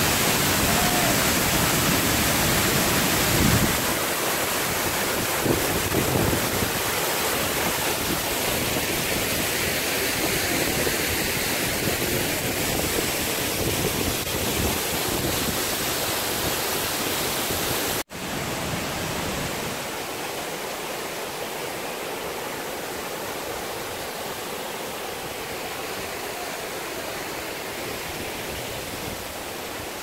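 Waterfall rushing, a steady loud roar of falling water. After a short break about 18 seconds in, the rushing goes on a little quieter.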